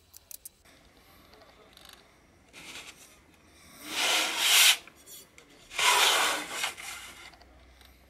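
Two scraping rubs, each about a second long, about four and six seconds in: the empty keyboard case being handled and slid against its cardboard box.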